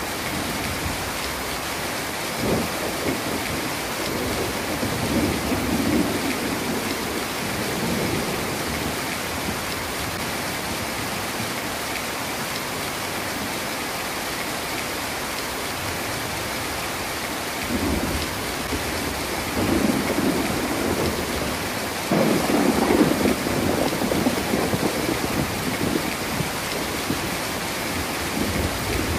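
Heavy rain falling steadily, with thunder rumbling low several times; the loudest roll comes about three-quarters of the way through.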